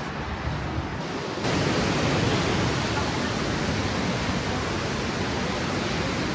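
A steady, even rushing noise that comes in suddenly about a second and a half in and then holds.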